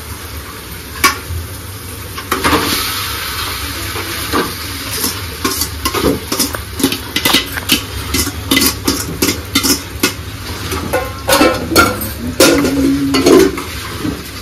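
Boiled noodles sizzling as they drop into a hot metal kadhai of fried vegetables, with a run of quick clinks of a steel colander and utensils against the pan in the middle.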